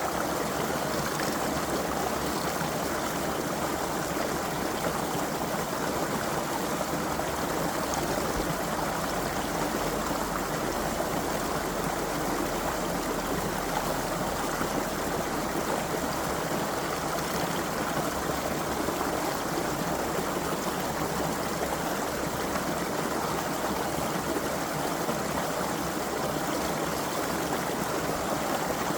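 Small creek flowing steadily over stones, a continuous rushing and burbling of water.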